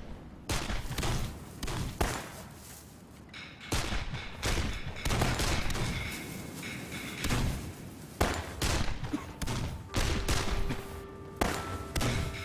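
Battle-scene gunfire for a war drama: scattered shots and volleys with heavy low thuds, coming at irregular intervals. A few steady held tones come in about ten seconds in.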